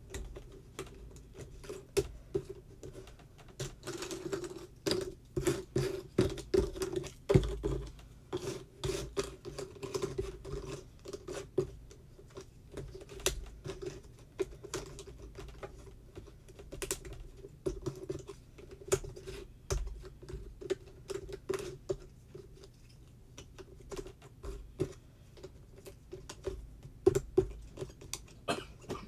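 Jigsaw puzzle pieces being handled on a tabletop: irregular quick clicks, taps and scratches as pieces are picked up, slid around and pressed into place.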